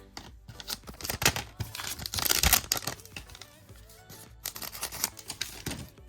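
A trading card pack wrapper being torn open and crinkled in the hands, in a run of sharp rustles with the loudest rip about two seconds in. Faint background music plays underneath.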